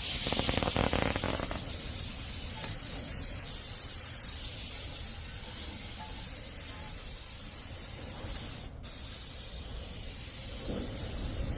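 Aerosol cleaner sprayed from a can onto the truck's rear axle hub area: a long steady hiss, a brief break about nine seconds in, then a second spray.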